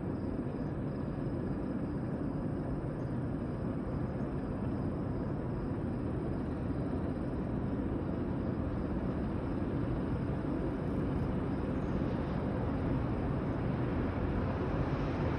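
Low rumble of distant diesel locomotives on an approaching train, slowly growing louder.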